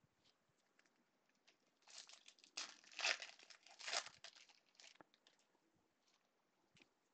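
A foil 2017 Bowman baseball card pack being torn open and crinkled in gloved hands. The crackle of the wrapper starts about two seconds in, is loudest around the middle, and dies away about five seconds in.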